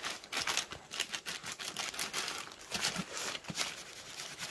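Kite canopy fabric rustling and crinkling under hands that press and smooth a double-sided-tape patch onto it, in irregular scuffs and crackles.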